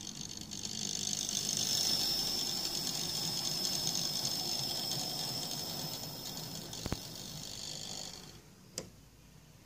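Model pannier tank locomotive's small electric motor whining as it runs along the track pulling goods wagons, with the wheels rattling on the rails. The sound builds in the first second, runs steadily, then dies away about eight seconds in, with a sharp click shortly before and another just after.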